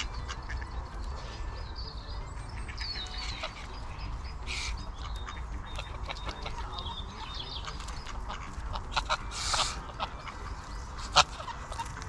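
Ducks and geese calling at the water's edge, with scattered quacks and smaller chirps over a steady low rumble. Two short rushing noises come midway, and a sharp knock near the end is the loudest sound.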